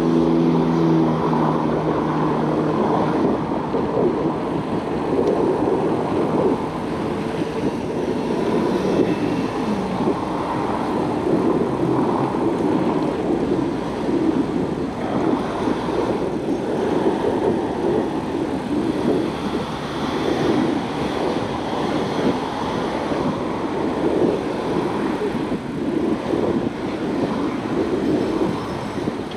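Steady rush of road traffic and wind noise during a bicycle ride along a roadside bike lane. A pitched engine hum fades away in the first few seconds.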